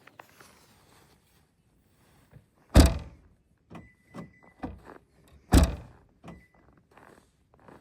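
Two heavy thumps, about three seconds apart, with lighter knocks between and after them, and a faint steady high tone for about a second and a half between the thumps.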